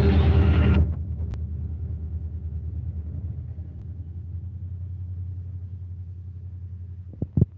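Diesel locomotive running under way: a loud, rattling din with a low engine hum for about the first second, then it cuts down suddenly to a steady low rumble that slowly fades. Two sharp thumps near the end.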